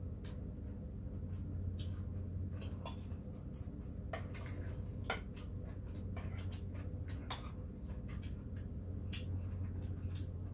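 Metal chopsticks and spoons clicking now and then against plates and bowls as food is picked up, over a steady low hum.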